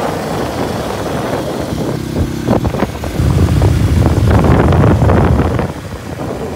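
Motorcycle engines running while riding on the road, with wind buffeting the microphone. The sound grows louder about three seconds in and drops back near the end.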